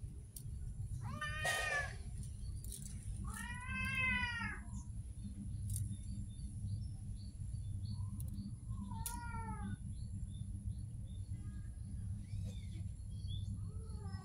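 Domestic cat meowing three times, the middle meow longer and louder and drawn out, over a steady low rumble.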